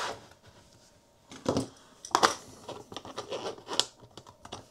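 Plastic clicks and taps as 3D-printed cradle parts are fitted together on a desk, with a Sky puck pressed into its printed base and a clamp piece pushed into place. After a short pause, a scattered, irregular run of light clicks and knocks.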